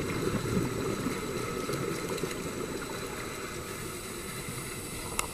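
Underwater bubbling of exhaled air from a scuba regulator, loudest at first and fading away over a few seconds, with a few sharp clicks near the end.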